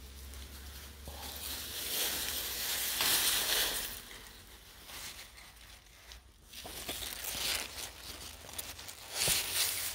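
Grass and leaves rustling and brushing close by as a gloved hand pushes through them, in several swells, with a few small clicks near the end.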